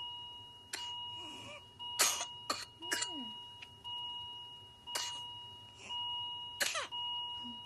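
Coughing fit of an infant with whooping cough (pertussis): short, sharp coughs in clusters of one to three, with short strained voiced sounds between them. A steady electronic beeping tone runs underneath.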